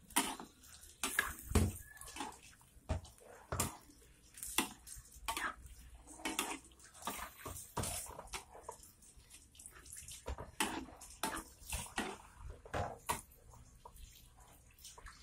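Metal spatula stirring squid, tofu and green beans in a wok of thin oyster-sauce broth: irregular scrapes and clinks against the pan, about one or two a second, with the liquid sloshing.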